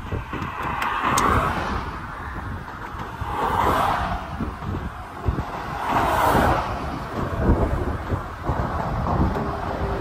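Highway traffic noise with wind buffeting the microphone, a steady rumble that swells three times, a couple of seconds apart.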